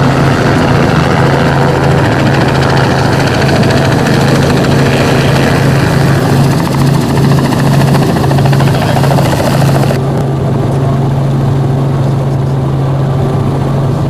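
Light helicopter close by, coming in low, its rotor beating and engine running steadily with a wide rushing hiss. About ten seconds in, the sound turns duller with the hiss cut off, the same engine and rotor heard from inside the cabin.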